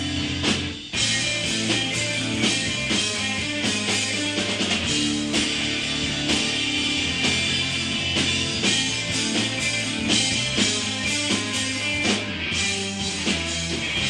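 Rock band playing live, with guitar and a drum kit. There is a short break just before a second in, then the band comes back in.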